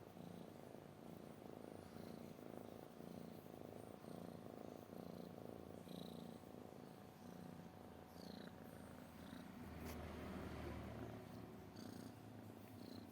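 Domestic cat purring: a faint, steady low rumble that swells and eases with each breath, about once a second.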